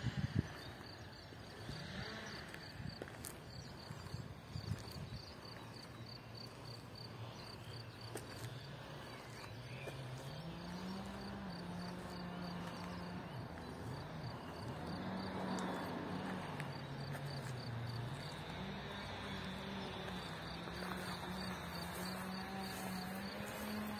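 Kawasaki Z750's inline-four with a Devil aftermarket exhaust idling quietly, its low note drifting slowly up and down. Over it, a cricket chirps steadily in quick, evenly spaced high ticks.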